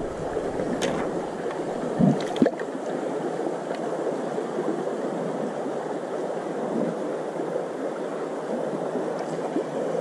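Shallow stream running over stones and gravel, a steady babble of flowing water, with a couple of short knocks about two seconds in.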